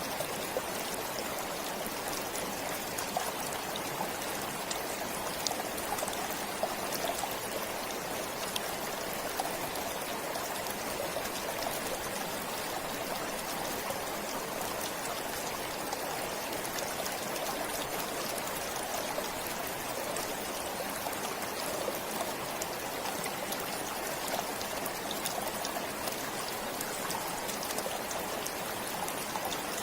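Forest stream flowing steadily: an even rush of water with small splashing ticks scattered through it.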